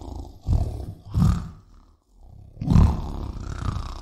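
Tiger snarling: two short snarls, then a longer, drawn-out snarl.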